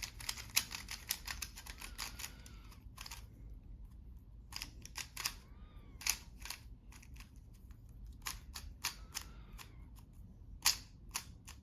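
Moyu RS3M 2021 maglev 3x3 speed cube, not yet lubricated, being turned by hand: its plastic layers click in quick runs. The clicks are dense for about the first three seconds, then come in sparser clusters.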